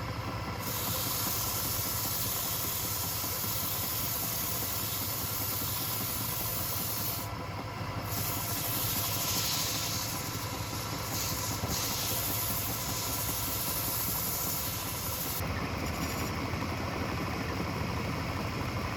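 Wood lathe running: a steady hum with a hiss over it. The hiss changes about seven and again about fifteen seconds in.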